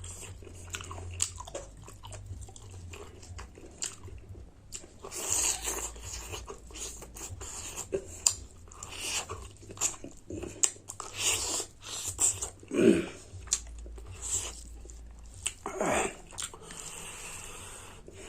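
Close-miked chewing and biting of a mouthful of pork curry and rice, with wet clicks and crunches, and two louder mouth sounds about two-thirds of the way in and near the end.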